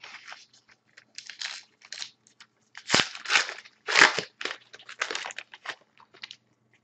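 Foil wrapper of a hockey trading-card pack crinkling and crunching as it is torn open and handled by hand, in irregular bursts that are loudest about three and four seconds in.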